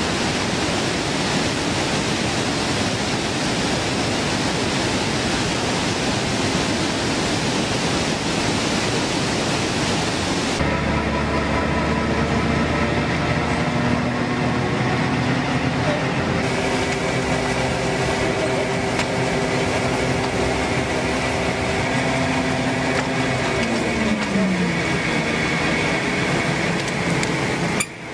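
Water rushing steadily over a weir spillway. About ten seconds in it gives way to the steady hum of a vacuum tanker truck's engine running, whose pitch falls near the end.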